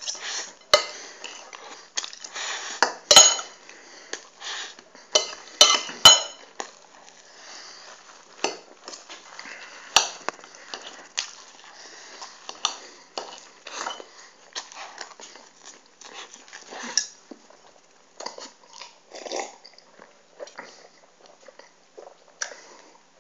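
Metal knife and fork clinking and scraping against a ceramic plate as pancakes are cut up and eaten quickly, with chewing between the strokes. The sharpest clinks come about 3 and 6 seconds in.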